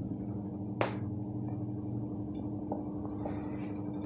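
Steady low hum, with one sharp knock about a second in and a couple of faint ticks later, from hands working the cut-out pieces of a carved pumpkin.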